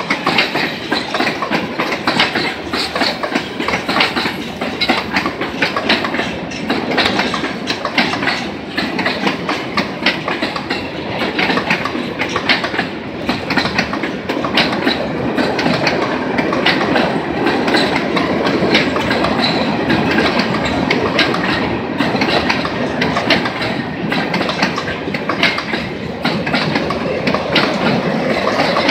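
A freight train's tank cars and boxcars rolling past, a steady loud rumble with frequent clacks of the wheels over the rail joints.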